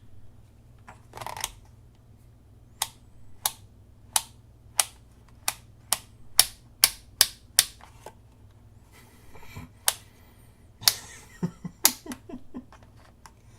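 Multimeter's rotary selector dial clicking through its settings: a run of sharp single clicks about every half second, then a quicker cluster of clicks near the end. No continuity beep sounds, because this meter has no buzzer.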